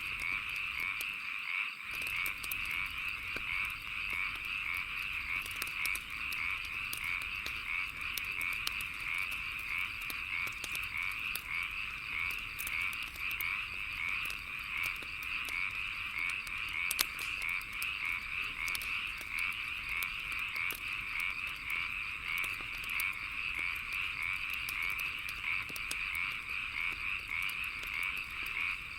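A chorus of frogs calling continuously in a dense, rapid croaking, over a wood fire crackling with scattered sharp pops; one louder pop comes about 17 seconds in.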